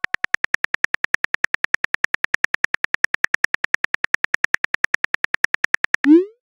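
Texting-app typing sound effect: rapid, even keyboard clicks, about ten a second, while a message is typed. About six seconds in it ends with a short rising swoosh as the message is sent.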